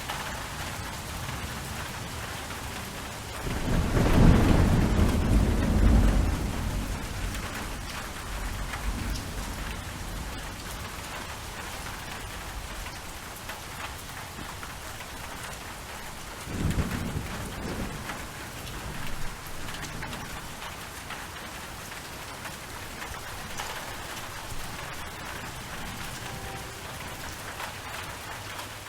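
Steady rain falling, with a loud roll of thunder rumbling about four seconds in and fading over a few seconds, then a fainter rumble later on.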